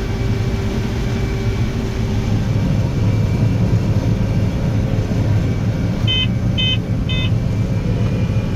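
Combine harvester running steadily while cutting corn, a low drone, with three short electronic beeps about half a second apart around six seconds in.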